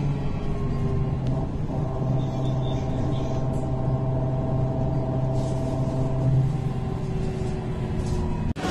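City bus engine running as the bus drives along, heard from inside the cabin: a steady low hum with several higher tones above it. It cuts off abruptly near the end.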